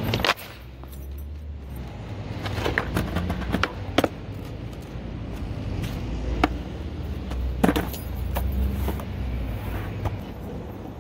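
Skateboard on concrete and asphalt: sharp clacks of the deck and tail striking the ground as tricks are popped and landed, about eight in all, with the low rumble of the wheels rolling between them.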